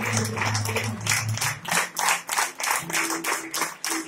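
A standing audience clapping together in a steady rhythm, about four claps a second, over background music with low held notes.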